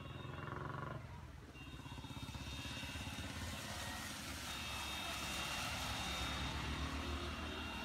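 Car traffic passing on a rain-soaked road: engines and tyres hissing through water on the tarmac. The hiss grows louder after about a second and a half and stays steady, with faint high whistling tones over it.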